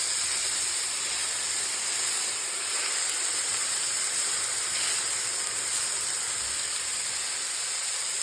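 Raw beef burger patties sizzling on a hot grill: a steady hiss.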